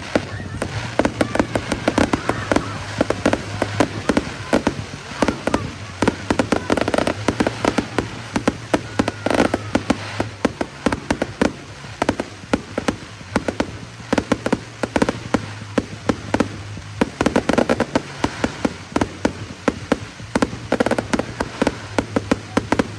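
Fireworks going off in a dense run of sharp cracks and pops, many a second, with clusters of louder crackles throughout.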